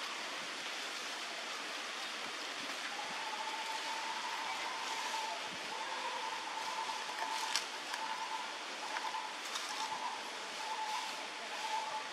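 Steady outdoor background hiss. About three seconds in, a thin, steady high tone comes in and later breaks up, with a few faint clicks.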